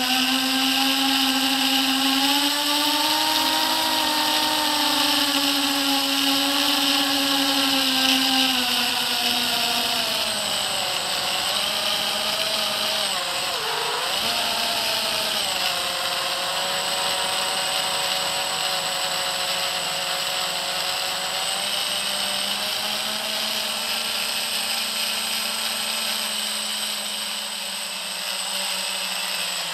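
FPV quadcopter's electric motors and propellers whining close up, picked up by the quad's own camera. The pitch rises and falls with the throttle, dipping sharply about 13 seconds in and then holding lower.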